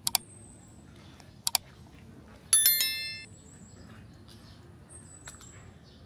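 Two pairs of sharp clicks, then a single short metallic ring about two and a half seconds in, fading away within about a second; faint high chirps over a low background hum.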